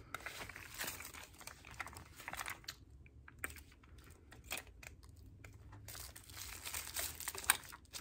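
Clear plastic packaging crinkling and rustling as a bag strap is unwrapped by hand, with irregular small clicks.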